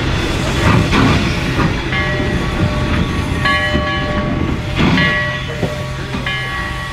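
1875 wood-burning steam locomotives standing with steam up: a steady hiss and low hum, with short high steady tones that come and go several times and a few louder surges of steam noise near the start and about five seconds in.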